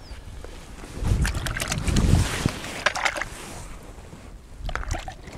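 Gusty wind buffeting the microphone in uneven low rumbles, strongest about two seconds in, with scattered sharp clicks and rustles.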